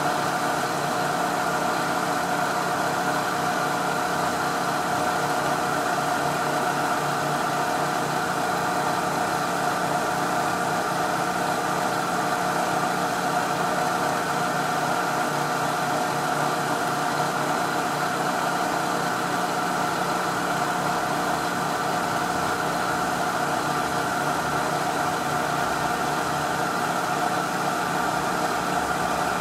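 Milling machine running, its end mill taking a continuous cut along a small metal casting clamped in a vise. The sound of spindle and cut stays steady and unchanging.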